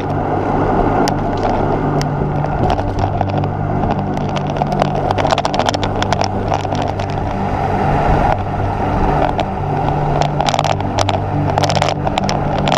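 Wind buffeting the microphone of a camera on a moving road bike, with steady tyre and road noise. Frequent clicks and rattles from bumps in the rough lane surface, coming thicker in the second half.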